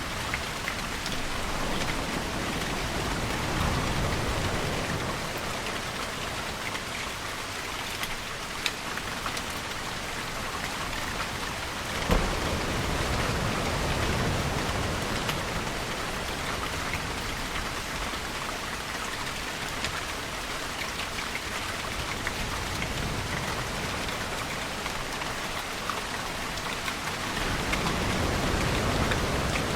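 Steady rain falling on surfaces, an even hiss, with slow low swells rising and falling every ten seconds or so. A single sharp tap about twelve seconds in.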